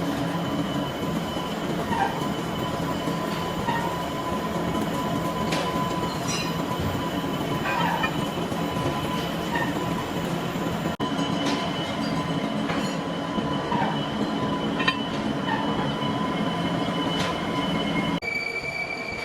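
Metalworking machinery running steadily, with a steady high whine and a few sharp metallic clicks; the sound changes abruptly twice.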